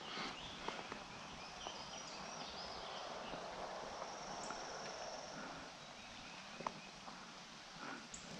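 Quiet outdoor ambience with no engine running: faint high chirps and a few light clicks and scuffs, one sharper click about two-thirds of the way through.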